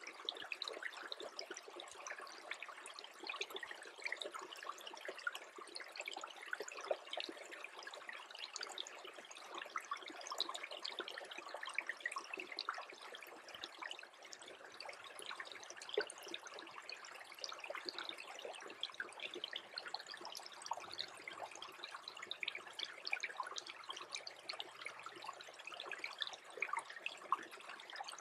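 Small stream that is freezing over, trickling and gurgling steadily with a dense patter of tiny bubbling clicks.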